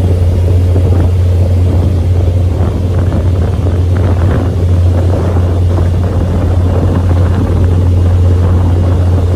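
Sightseeing boat's engine running under way, a steady low drone, with wind buffeting the microphone.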